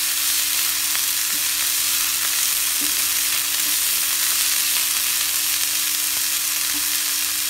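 Drumstick (moringa) flowers and shallots frying in ghee in a pan with a steady sizzle, stirred now and then by a spatula.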